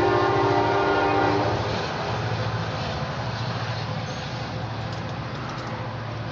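Locomotive horn blowing a chord of several notes, cutting off about a second and a half in; a steady low rumble of the train carries on and slowly fades.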